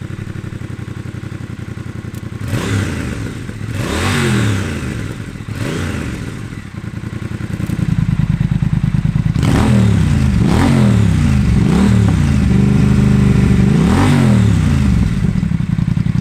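Triumph Thruxton RS 1200 parallel-twin idling through a Jekill & Hyde valved exhaust and being blipped on the throttle, a few quick revs and drops. About halfway through it gets clearly louder, with the exhaust valve open, and several more blips follow, one held a little longer.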